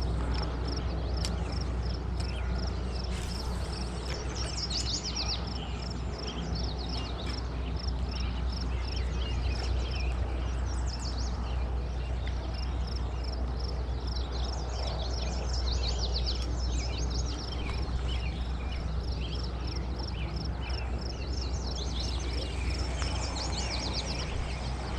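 Small birds chirping in short bursts every few seconds over a steady rushing background of open-air noise, heaviest in the low end.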